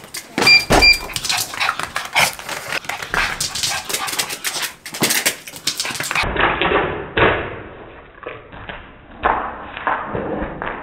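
Maltese dog excitedly whining, yipping and barking in a fuss of short cries. Two short electronic beeps sound about half a second in.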